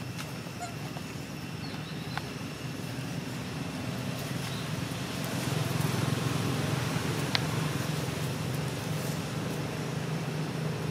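Low, steady engine rumble of a motor vehicle, growing louder about halfway through, with a few faint clicks.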